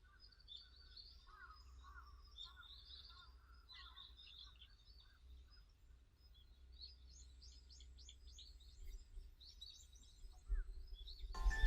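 Wild songbirds chirping and singing over a low steady outdoor rumble, many short calls overlapping. Near the end a sudden loud knock, and a ringing chime begins.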